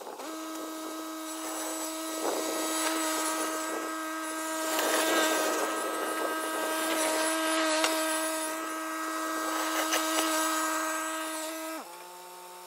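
Kubota L3901 compact diesel tractor running at steady high revs with a constant whine and some rattling while it pushes snow with its rear blade. Near the end the pitch drops as the tractor is throttled back.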